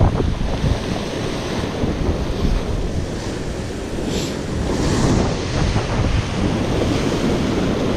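Sea swell surging and breaking against coastal rocks, with a wave rushing in about four to five seconds in, and wind buffeting the microphone.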